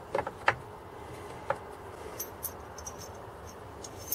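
A steel Forstner drill bit knocking lightly against an oak box as it is set into its slot: a few quick taps in the first half-second and one more about a second and a half in. Faint high ticks follow near the end.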